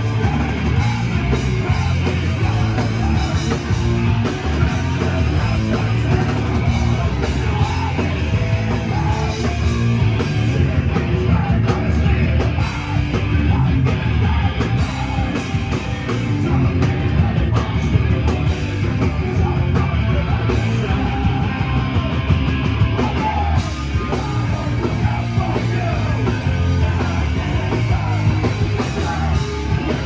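Hardcore punk band playing live and loud: distorted electric guitar, bass and drums with shouted vocals.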